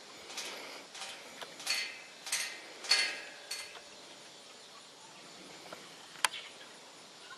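Horse hoofbeats on dry, dusty pasture ground, about two strikes a second for the first few seconds, then quieter. A single sharp click a little past halfway through.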